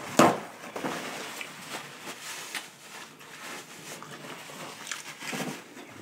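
A paper towel ripped off the roll with one sharp tear just after the start, then quieter paper rustling and small crackling clicks, with a brief hummed voice sound a little after five seconds in.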